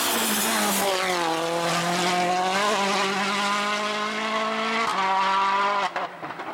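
Citroën DS3 WRC rally car's 1.6-litre turbocharged four-cylinder engine running hard through a stage. The engine note dips about a second in, then holds and climbs slowly. It breaks briefly near five seconds and falls away about six seconds in.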